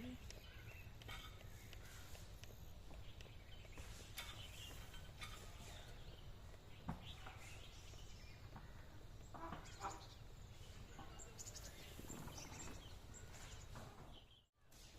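Faint outdoor ambience: a steady low rumble with scattered faint clicks and a few faint bird calls. The sound cuts out briefly near the end.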